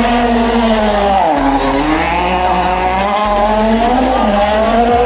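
Rally car engine revving hard on the stage, its pitch dropping sharply about a second and a half in and then climbing again as the driver lifts off and gets back on the throttle.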